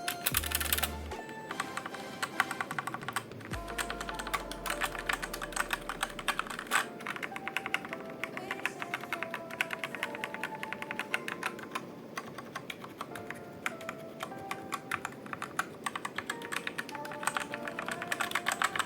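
Rapid, continuous typing on a Redragon Kumara mechanical keyboard fitted with red linear switches, a dense run of keystroke clicks. Background music plays underneath.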